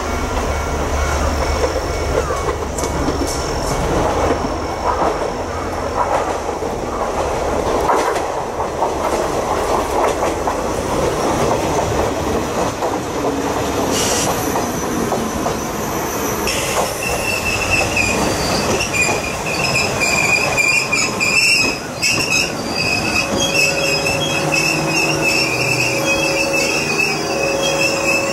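JR West 105 series electric train running into the station: its wheels rumble and clack over the rail joints, and from a little past halfway a steady high squeal sets in as it brakes and slows along the platform.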